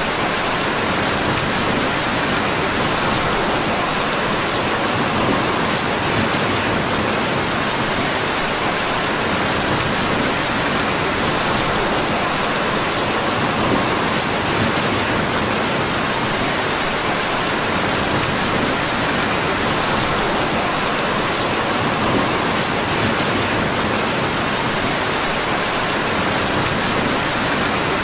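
Steady, even rainfall with no let-up, and a few faint scattered clicks.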